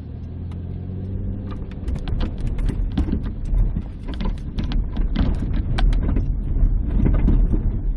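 Steelman Wireless ChassisEar receiver's speaker relaying what a clamp-on microphone on the minivan's front suspension picks up while driving. It starts as a steady low hum, then turns into a dense run of sharp clicks and knocks over a low rumble that grows louder.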